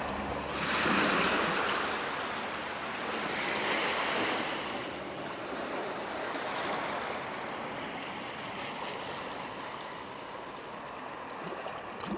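Sea waves washing: a rushing of water that swells about a second in and again around four seconds, then eases off.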